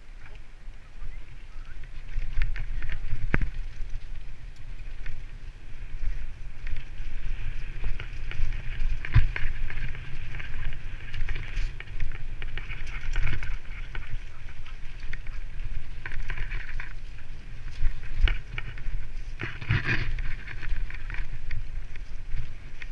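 Mountain bike riding fast down a dirt forest trail: a continuous low rumble of tyres and air on the helmet camera, with many sharp clicks and knocks from the bike rattling over roots and bumps. It builds up over the first couple of seconds as the bike gathers speed.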